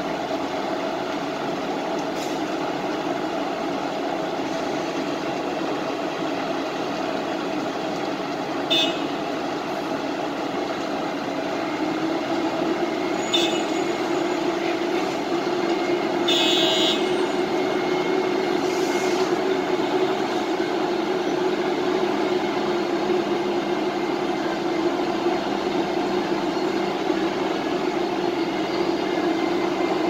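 Wirtgen cold milling machine running steadily as it mills the road surface, a continuous heavy machine drone that grows louder about 12 seconds in. A few short, sharp clanks cut through it.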